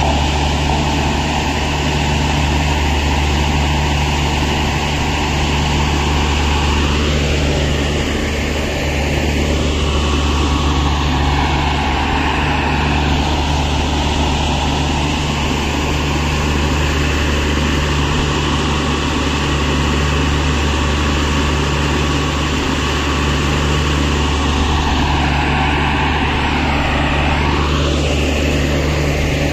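Diesel engine of a railway utility track vehicle (UTV) running steadily under load, with a higher whine that rises and falls in pitch a few times as it works its rail-handling crane.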